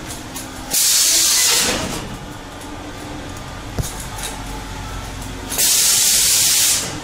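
Two loud bursts of hissing noise, each about a second long and a few seconds apart, starting and stopping suddenly, over a faint steady background; a single short click in between.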